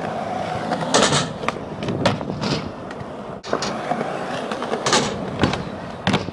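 Skateboard wheels rolling on smooth concrete with a steady rumble, broken by several sharp clacks of the board.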